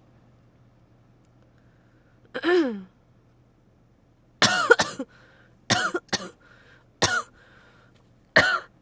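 A person with a head cold coughing repeatedly: about six coughs, the loudest a double cough about halfway through, over a steady low hum.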